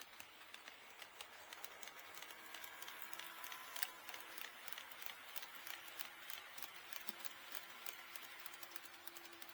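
HO scale model train running on KATO Unitrack, its wheels clicking in quick succession over the rail joints, with a faint motor whine. It grows louder over the first few seconds, with one sharper click about four seconds in.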